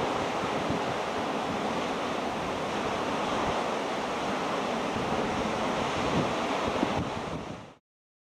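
Rough sea surging and breaking over rocks, a steady dense wash of surf with wind buffeting the microphone in irregular low rumbles. It fades out quickly near the end into silence.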